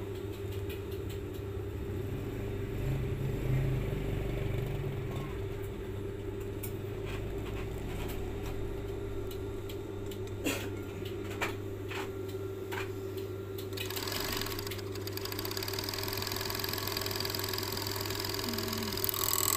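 Overlock sewing machine (serger) stitching scuba fabric: a steady motor hum, a few sharp clicks around the middle, then a louder, hissier run of stitching from about two-thirds of the way through to the end.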